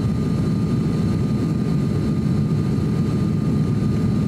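Cabin noise of an ATR 42-600 turboprop on final approach: the steady low drone of its Pratt & Whitney PW127 engines and propellers, with a thin steady whine above it.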